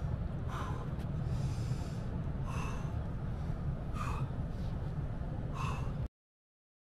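A man breathing hard from exertion, with four sharp, forceful exhalations about one and a half to two seconds apart, over a steady low rumble. The sound cuts out completely about six seconds in.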